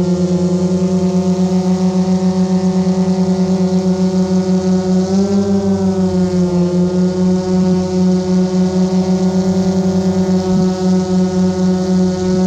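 GoPro Karma quadcopter's electric motors and propellers buzzing steadily as it lifts off and hovers, with a fast pulsing beat. The pitch rises briefly about five seconds in, then settles back.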